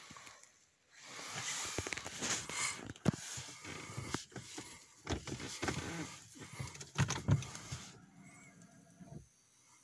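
Rustling with irregular clicks and knocks inside the cabin of a parked Mercedes-Benz W202, engine not running, as the ignition is switched on.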